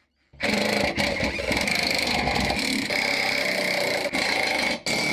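Power tool running in one long steady burst, undoing the bolts that hold the differential in.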